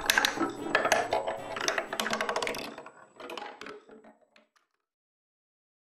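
Marble clattering down a wooden marble machine's step stairway: a quick run of light wooden clicks that thins out and fades away about four and a half seconds in.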